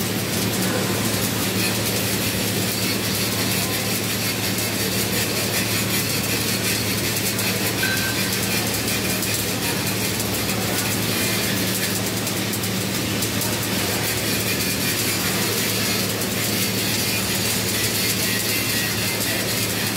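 Flux-cored arc welding (FCAW): the wire-fed arc crackles and sizzles steadily without a break, over a steady low hum.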